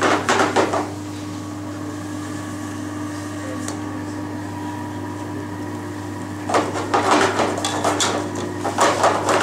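A metal ladle and steel frying pan clattering and scraping as crustacean stock is ladled from a pot into a pan of pasta, in a short burst at the start and again in the last few seconds. A steady low hum runs underneath.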